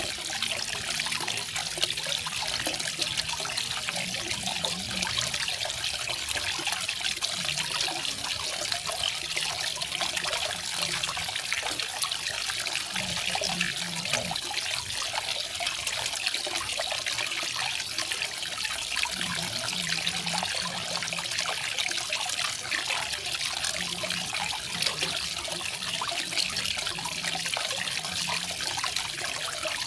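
Small garden waterfall: water falling and splashing in a steady, even rush.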